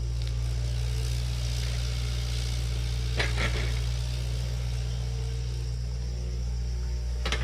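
Diesel engine of an earth-moving machine running steadily. Two sharp metallic clanks come about three seconds in, and another near the end.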